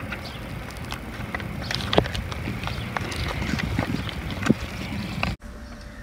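Outdoor background noise: a low wind-like rumble with a few scattered clicks and knocks, cutting off suddenly about five seconds in.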